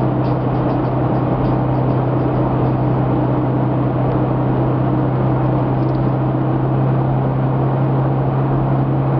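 Toyota FJ Cruiser's 4.0 L V6 through a TRD exhaust, heard from inside the cabin at a steady cruise: a constant low drone that holds the same pitch throughout.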